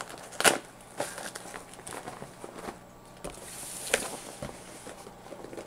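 Hands handling a cloth cable pouch and a cardboard box on a table: rustling and scraping, with a loud knock about half a second in and another sharp knock near 4 s after a brief sliding rustle.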